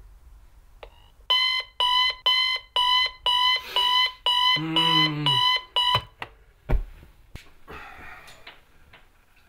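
Bedside clock radio alarm beeping, about two high beeps a second for some five seconds, with a man's low groan in the middle. The beeps cut off suddenly, followed by a thump and then bedclothes rustling.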